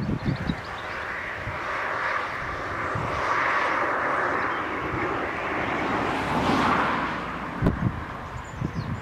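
Distant steam locomotive working hard up a grade: its exhaust blends into a steady roar that swells as it nears. Wind buffets the microphone at the start and again near the end.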